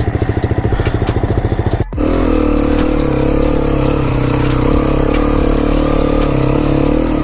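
Enduro dirt bike engine running, first chugging at low revs in fast even pulses, then after an abrupt break about two seconds in, running steadily at higher revs.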